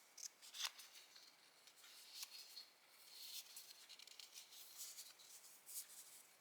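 Faint, crisp snips and paper rustles of paper being handled and cut with scissors for diary decorating, in short irregular bursts.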